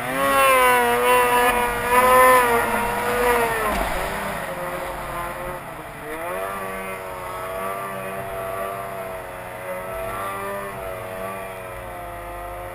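Two-stroke mountain snowmobile engine revving hard as the sled is ridden through deep powder. The pitch drops about four seconds in as the throttle eases, then climbs again around six seconds and holds high, wavering with the load.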